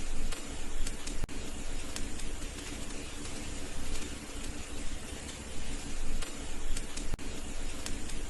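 Wood fire in a fireplace crackling and hissing steadily, with scattered sharp pops.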